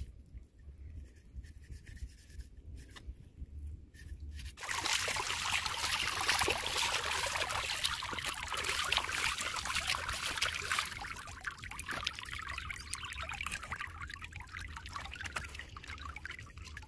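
Water trickling and splashing with rubbing, as wet hands are washed and rubbed together in water. It starts suddenly about four and a half seconds in and eases off over the last few seconds.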